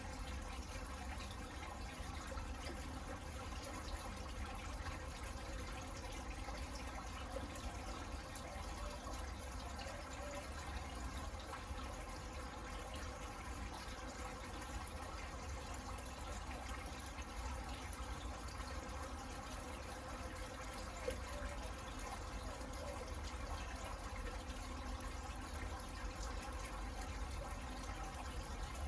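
Steady rain falling on a garden.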